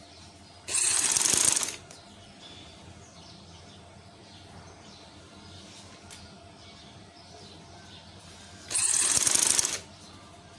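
Sewing machine stitching cloth loops onto a newspaper backing in two short runs of about a second each, one near the start and one near the end.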